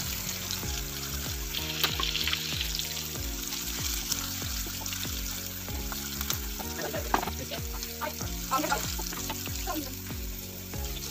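Garlic, whole red chillies and green chillies sizzling in hot oil for a tarka, with the odd crackle and the scrape of a spatula stirring them. Background music with a melody plays underneath.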